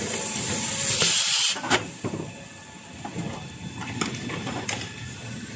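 Toilet paper rewinding machine running, with a loud hiss of air building over the first second and a half and cutting off abruptly, then a few sharp clicks from the mechanism over its steady running.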